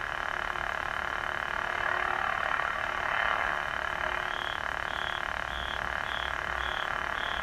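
Lightsaber soundboard's blade hum playing steadily from the hilt speaker, wavering with the flicker effect as its depth is adjusted. A little past halfway, a higher tone starts pulsing about twice a second.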